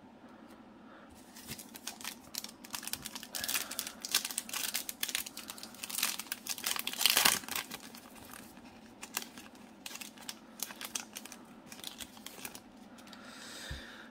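Foil wrapper of a Panini Select basketball card pack crinkling as it is torn open, loudest in the middle.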